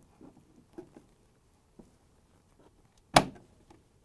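Faint rubbing and handling as a rubber drain tube is fitted onto a plastic refrigerator drip pan, then one sharp click about three seconds in.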